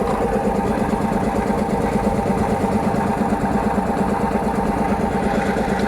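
Air compressor running steadily, pumping up its tank before the pressure switch cuts it off.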